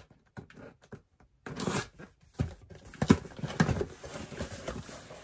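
Cardboard subscription box being opened by hand, starting about a second and a half in: rustling and tearing of the packaging with a few sharp knocks of the box being handled.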